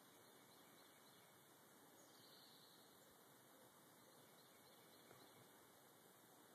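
Near silence: a steady faint hiss, with faint distant bird chirps.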